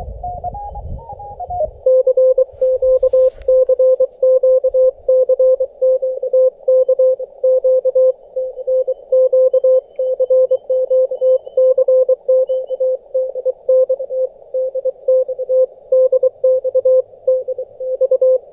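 Morse code (CW) from another station calling CQ DX, heard through a Xiegu G90 HF transceiver's receiver: a single steady tone keyed in dots and dashes over a narrow band of receiver hiss. In the first two seconds, before the keying settles in, a tone steps upward in pitch as the receiver is tuned.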